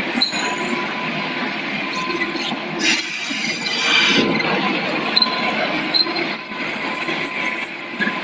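Volvo crawler excavator working: its diesel engine runs under load with a steady high hydraulic whine as the upper structure swings and the boom moves. About three seconds in there is a louder rush lasting about a second.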